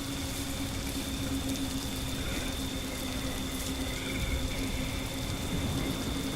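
Steady rain noise with a low rumble underneath and a faint constant hum running through it, as a storm ambience.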